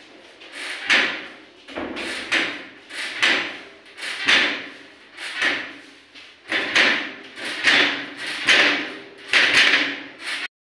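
Bread dough being kneaded by hand on a stainless steel table: rhythmic pushing and rubbing strokes, about one a second, breaking off abruptly just before the end.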